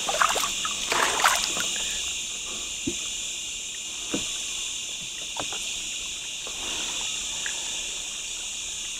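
A steady, high chorus of night insects. Over it come a few short splashes and knocks, most of them in the first second or so, as a hooked channel catfish is handled at the side of a boat.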